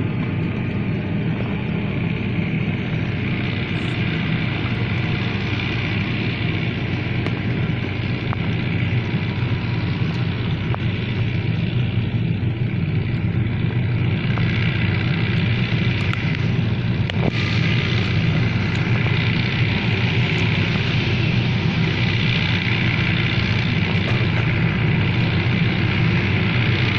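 Fiat 640 tractor's diesel engine running steadily under load, driving a straw chopper that cuts wheat stubble into chaff. The sound grows a little louder about halfway through.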